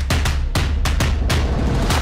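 Intro music with a strong, regular drum beat over deep bass.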